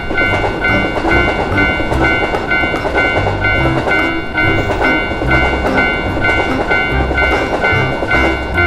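A train running past a Japanese railroad crossing, a steady rolling rumble that stops near the end. Through it the crossing's warning bell rings about twice a second, over background music.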